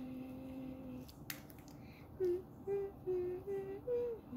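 A girl humming a tune without words: one long held note, then a run of short notes stepping upward near the end. A single sharp click comes just over a second in.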